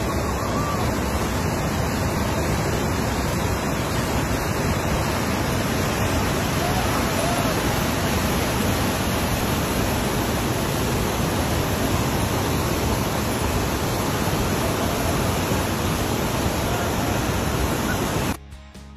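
Steady rushing of big whitewater rapids on the Zambezi River, an even, loud wash of water noise, cutting off suddenly near the end.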